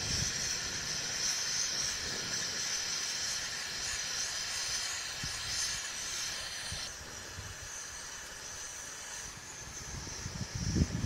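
Paal bun dough balls deep-frying in a pan of hot oil, a steady sizzle that drops a little in level about seven seconds in.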